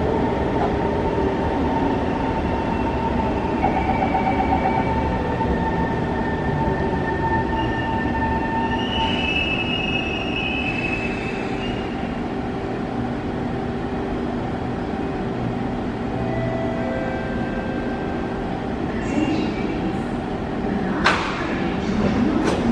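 SMRT C151 metro train running into an underground station and slowing to a stop, with a steady rumble and hum. A brief high squeal comes about ten seconds in, and a sharp knock about a second and a half before the end as the train comes to rest.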